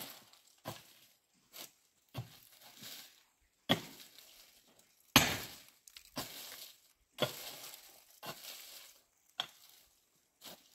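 About ten sharp knocks or cracks at uneven intervals, roughly one a second, each trailing off in a short hiss. The loudest comes about halfway through.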